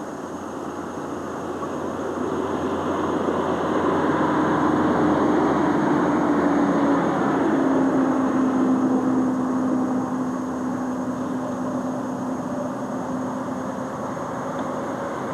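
A motor vehicle's engine and road noise, growing louder over the first few seconds and then easing, with a steady hum that drops a little in pitch about halfway through.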